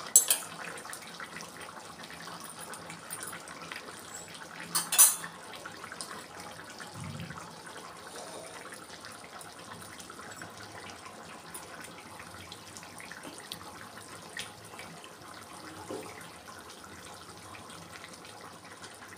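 Hot curry simmering in a clay pot on a gas stove: a steady low hiss and bubbling. There is a sharp knock just after the start and a louder one about five seconds in.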